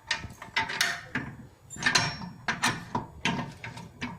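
Irregular metallic clicks, clinks and short scrapes of bolts being fitted and tightened into a treadmill's frame by hand.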